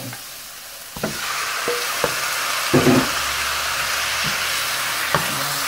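Raw chicken pieces going into a hot pan of oil with sautéed garlic, ginger and onion: the sizzling jumps up sharply about a second in and keeps going. A few sharp knocks against the pan come as the pieces go in and are moved with a wooden spoon.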